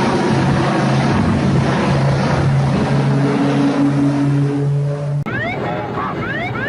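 A steady engine drone under loud rushing wind noise, cutting off suddenly about five seconds in; after it, a series of short rising chirps.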